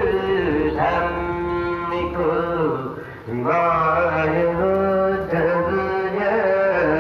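Devotional singing: a voice holding long, gliding melodic notes in slow phrases over a steady low accompaniment, with a brief pause between phrases about three seconds in.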